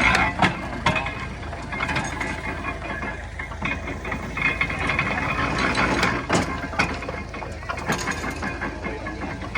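1923 International Harvester stationary baler working straw: a steady engine runs under irregular clanks and knocks from the baler's mechanism.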